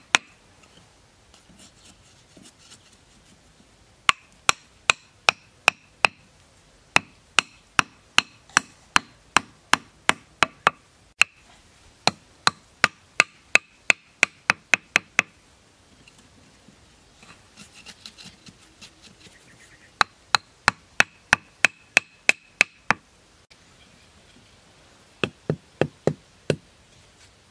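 Wooden club knocking bamboo stakes into the ground: runs of sharp knocks about two a second, with pauses between runs and a faint scraping in one of the pauses.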